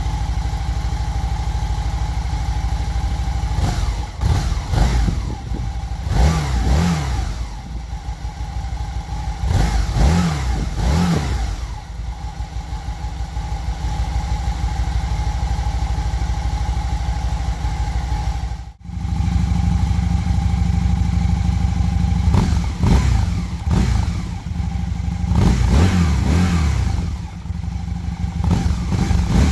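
Aprilia RST1000 Futura's 1000 cc V-twin engine idling with repeated short throttle blips. For the first two-thirds it runs through the stock exhaust. After a sudden cut it runs through aftermarket Dominator twin silencers, idling and blipped again.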